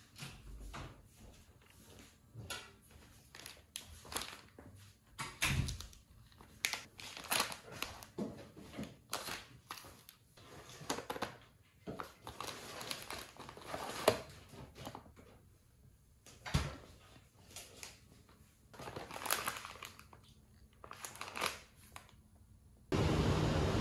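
Packaged goods being handled: irregular crinkling and rustling of plastic wrappers with light knocks as items are set down, in a small room.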